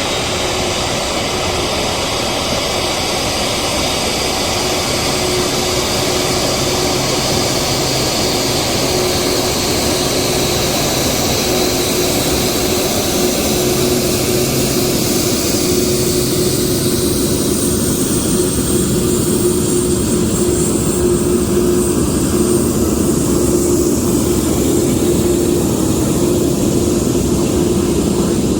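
Jet turbine running steadily: a loud, even rush with a steady hum.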